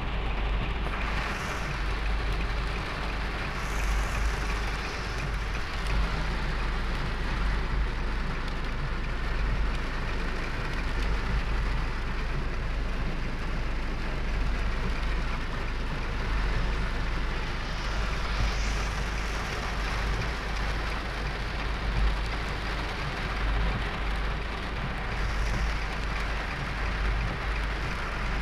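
Heavy rain drumming on a car's roof and windshield, heard from inside the cabin, over a steady low rumble. A few brief hissing swishes rise above it now and then.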